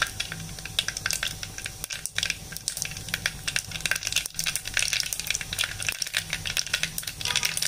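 Mustard seeds popping and crackling in hot oil in a clay pot, a fast, irregular crackle with sizzling over a steady low hum. The seeds are spluttering, the sign that the oil is hot enough for the tempering.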